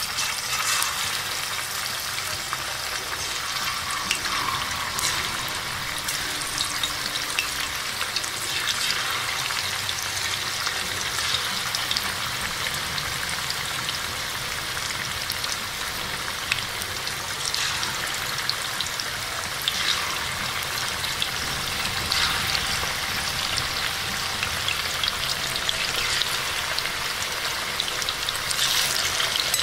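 Chicken pieces deep-frying in hot oil, a steady sizzle with crackling as more pieces are dropped in.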